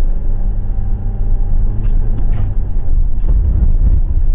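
Car driving as heard from a dashcam: steady low engine and road rumble, with a few faint clicks about two seconds in.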